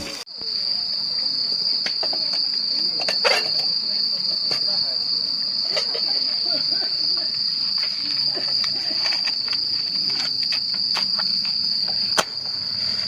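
Insects trilling in one continuous, steady high note, with scattered sharp crackles; the loudest crackle comes near the end.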